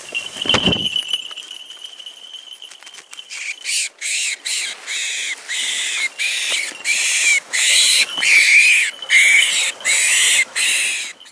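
Caught quarry screaming in distress under a goshawk: loud, shrill screams repeated nearly twice a second, starting about three seconds in. Before them comes a thump in the first second and a thin steady high tone.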